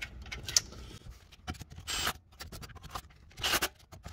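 A hand tool tightening the bolts of a CV axle's center support bearing plate: scattered metal clicks, with two short scraping rasps about two seconds in and again about a second later.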